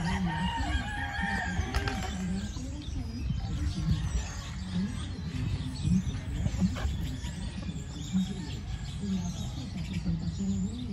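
Chickens clucking and calling, with a rooster crowing near the start, over a steady low rumble.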